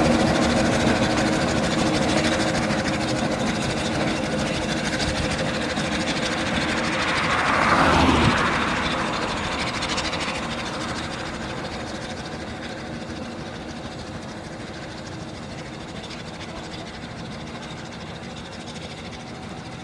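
Fowler steam road roller working uphill with a van and trailer in tow. It grows louder to a peak about eight seconds in, then fades steadily as it draws away.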